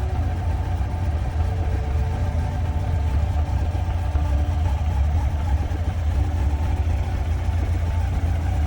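1993 Honda CBR900RR's inline-four engine running steadily, a low, even rumble with no revs.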